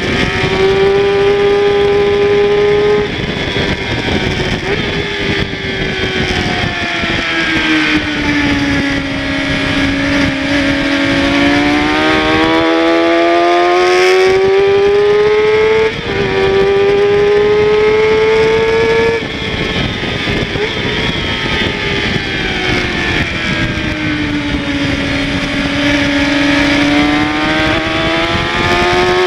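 Onboard sound of a Kawasaki ZX-6R's 600cc inline-four, fitted with a slip-on exhaust, ridden hard on track. Its pitch climbs and drops sharply at each upshift, about three times, and twice sinks slowly as the bike slows for a corner before climbing again, over steady wind rush.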